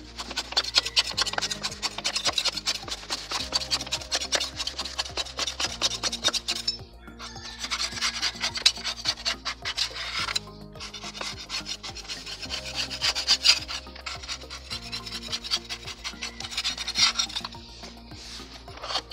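Scouring sponge scrubbing the caked, grimy underside of a lawnmower deck in rapid rubbing strokes, pausing briefly twice.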